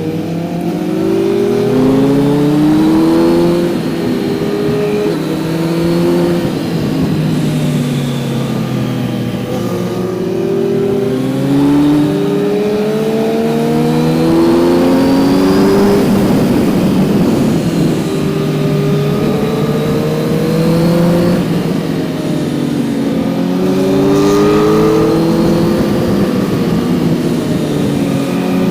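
Kawasaki Z900's inline-four engine heard from the rider's seat, repeatedly revving up under acceleration and dropping in pitch at each gear change or roll-off.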